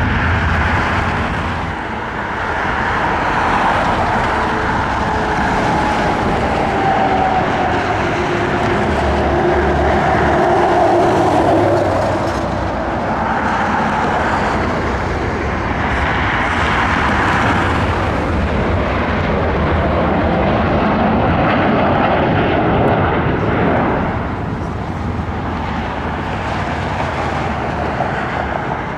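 Airbus A350-1000 twin Rolls-Royce Trent XWB-97 jet engines at taxi thrust, a steady jet rush with a whine that slowly drops in pitch in the first half.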